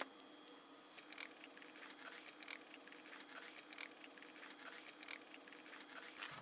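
Faint rustles, scrapes and light ticks of a white cardboard box being handled while its tight-fitting top cover is worked loose, with one sharp click right at the start.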